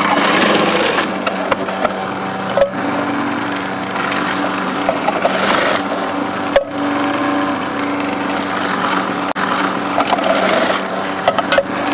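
Magimix food processor running with a steady motor hum while red cabbage is pushed down the feed tube onto the shredding blade, crunching and rasping in several spells as the pieces are shredded, with occasional sharp clicks.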